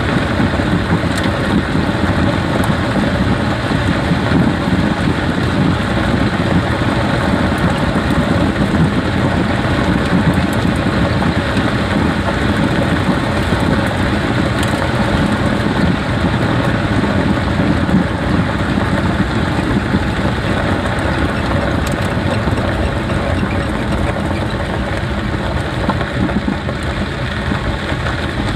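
A Jeep being driven: steady road, tyre and drivetrain noise.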